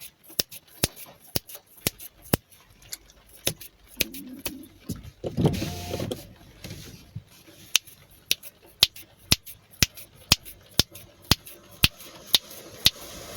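Sharp clicks repeating at a steady pace of about two a second, with a brief duller noise around five to six seconds in.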